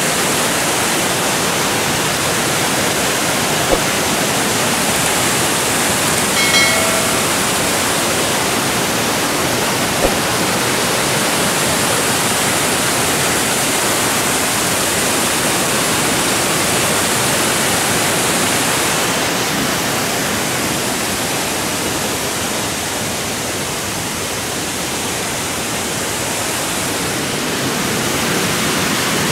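Manojlovac waterfalls on the Krka river: a steady rush of falling water, easing slightly a little past the middle.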